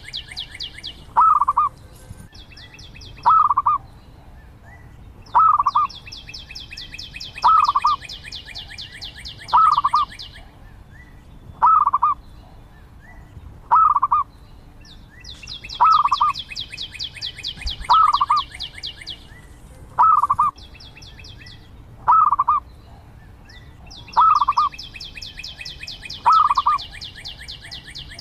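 Zebra dove cooing: a short, trilled coo repeated about every two seconds. Between the coos, a high, rapid buzzing trill lasting two to three seconds comes in about every nine seconds.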